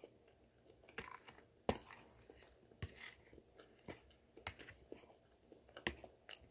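Close-up chewing of food, broken by several sharp clicks, some of them from a spoon against the dish.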